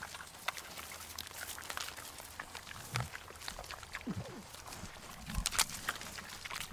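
Macaques foraging at close range: scattered small clicks and crackles, with a few short low sounds that fall in pitch near the middle and again near the end.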